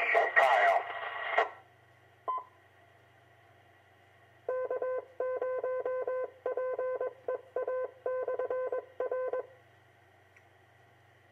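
A two-meter radio repeater heard through a receiver: a short courtesy beep as a transmission drops, then, about four seconds in, a string of Morse code dots and dashes in one steady tone lasting about five seconds, typical of the repeater's automatic CW identification.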